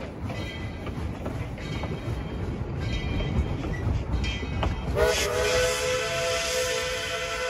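Steam train rumbling along with faint clicking from the wheels on the rails, then about five seconds in the locomotive's steam whistle starts, a steady blast of several tones that bends up slightly as it opens.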